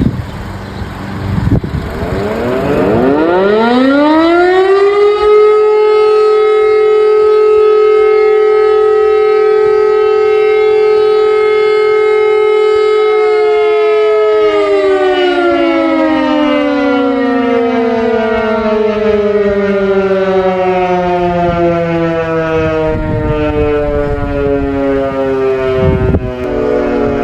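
Civil-defence siren sounding a test. About two seconds in it winds up over a few seconds to one steady tone, holds it for about ten seconds, then slowly winds down in a long falling glide.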